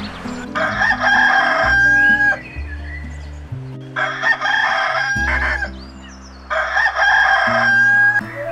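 Rooster crowing three times, each crow a second or two long and ending on a drawn-out held note, over soft background music.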